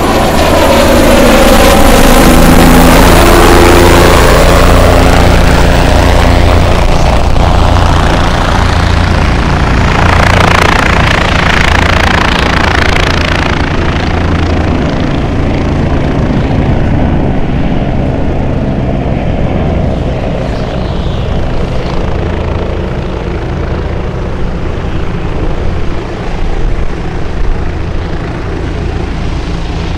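An engine running with a steady, loud low drone. In the first few seconds a falling sweep of tones runs over it.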